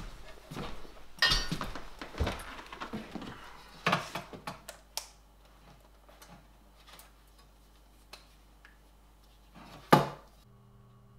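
Thin stainless-steel armor plate being handled at a desk: a string of irregular light metallic clanks and knocks that thin out, then one louder clank near the end.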